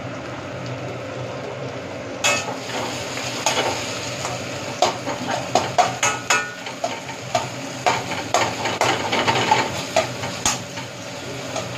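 Sliced onions and green capsicum sizzling in oil in a wok over a gas burner. From about two seconds in, a metal spatula scrapes and clinks against the wok as they are stirred.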